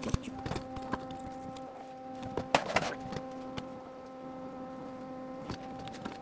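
A steady machine hum with several evenly spaced tones, overlaid by scattered clicks and knocks of hands and tools working in an engine bay, with a louder clatter about two and a half seconds in.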